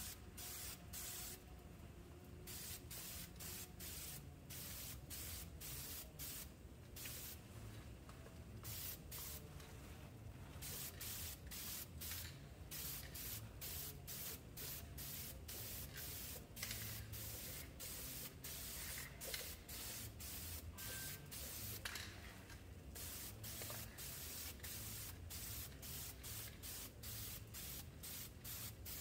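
Aerosol spray-paint can spraying in many short hissing bursts with brief gaps between them, laying a first coat of paint.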